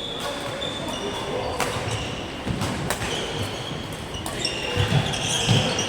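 Badminton rally: rackets striking the shuttlecock with sharp cracks about every second and a half. Court shoes squeak on the floor and feet thud, mostly in the second half.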